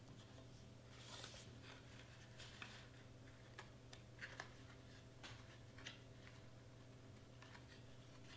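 Faint, scattered rustles and light taps of cardstock being handled, lined up and pressed together by hand, over a steady hum.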